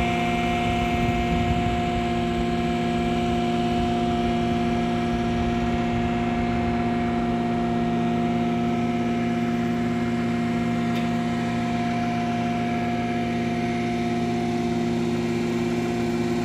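An engine running at a steady speed: an even hum with several fixed tones that never change in pitch.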